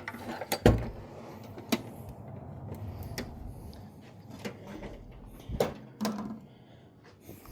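Someone rummaging through a shop storage drawer or cupboard: objects clunking and knocking as they are moved, a handful of separate knocks with the loudest under a second in and two close together near the end.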